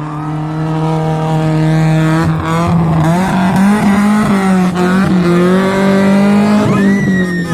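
Rally car engine at racing speed, growing louder as it approaches. Its pitch dips and climbs several times around the middle, as the driver lifts and changes gear, then it holds steady at high revs.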